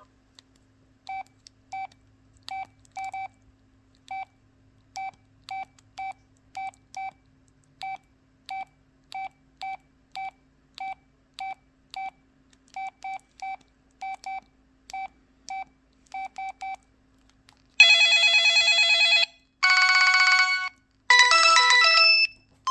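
Samsung Hue 2 mobile phone giving a string of short, identical beeps at uneven spacing, like key tones while the menu is worked. About three quarters of the way in, a loud polyphonic ringtone starts playing with three long synthesized chords.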